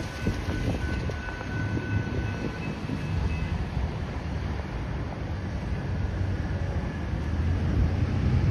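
Low rumble of a distant, approaching Metra commuter train, mixed with wind on the microphone. Faint steady high tones sound for the first two or three seconds.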